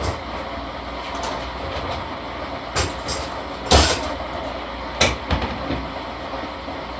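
Steady rushing background noise with a few sharp knocks and clatters, the loudest about four seconds in.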